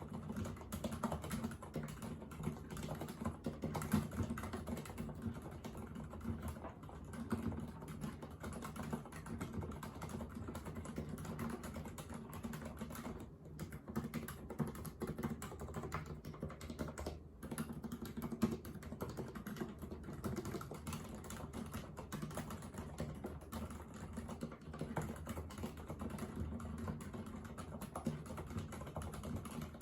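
Continuous fast typing on a Thinkway mechanical keyboard with silent red linear switches: a dense run of soft, muffled keystrokes.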